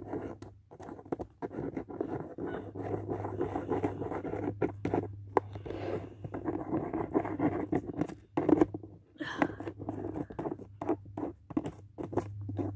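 Close scratching and rubbing of fingers working a cardboard piece while spreading nail glue over it: many small scrapes and clicks, with a low hum in stretches.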